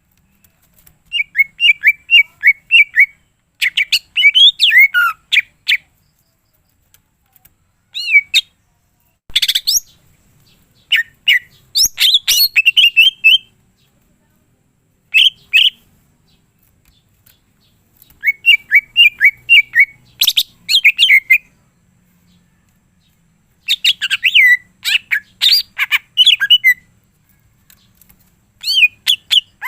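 Cucak ijo (green leafbird) singing in a string of loud, rapid chirping and trilling phrases, each a second or two long, with short pauses between them. This is the leafbird's full song with its mimicked phrases, the kind bird keepers call 'gacor full isian'.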